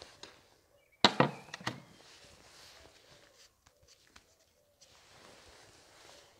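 Handling noise: a quick cluster of knocks and rustles about a second in, then quieter scuffing and rustling, as a paper panel air filter is picked up and moved around.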